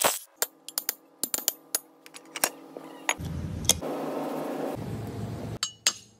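Irregular metallic clinks and taps of tools and parts on a semi-truck wheel hub. About three seconds in there is a steadier noise for roughly two seconds, and near the end come quicker sharp taps of a hammer on the hub's wheel studs.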